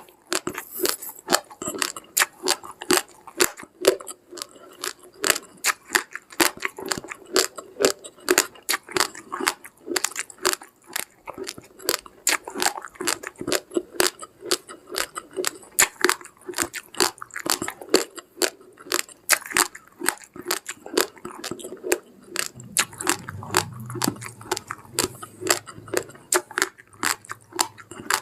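Chewing uncooked rice grains: a steady run of sharp, crisp crunches, several a second. A faint low hum joins in for a few seconds near the end.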